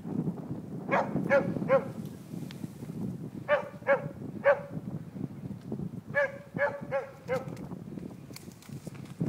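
Moose-hunting dog barking at a moose in three quick series of three to five short, sharp barks.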